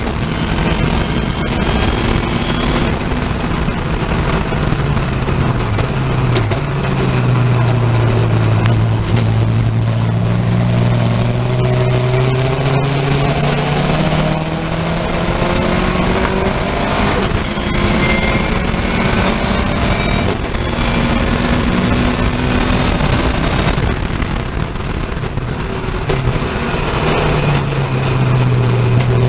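Racing saloon's engine heard from inside the cockpit, revs climbing and dropping repeatedly with gear changes and braking for corners, over constant wind and road noise.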